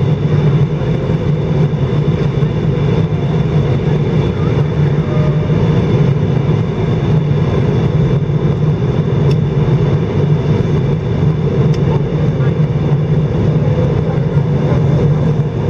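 Steady cabin noise inside an Airbus A319 airliner in flight on its descent: engine and airflow noise, loudest in the low range, with faint steady high tones above it.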